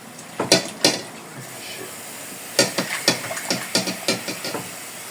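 Water running into a bowl of chicken being washed in vinegar and lemon, a steady hiss, with knocks and clicks of the bowl and pieces being handled.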